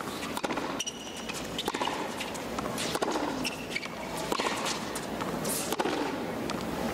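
Tennis rally on a hard court: a string of sharp pops as the ball is served and hit back and forth by rackets and bounces, with brief squeaks of shoes on the court.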